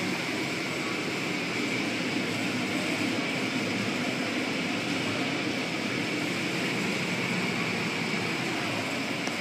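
Automatic car wash cloth strips and water spray washing over the car, heard from inside the cabin as a steady swishing noise.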